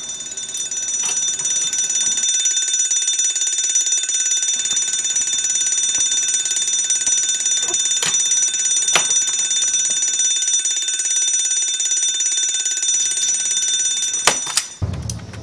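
Fire-alarm bell ringing without a break, as a steady high metallic ring. A few sharp plastic clicks come through it as toy figures are handled, and the ringing cuts off suddenly near the end.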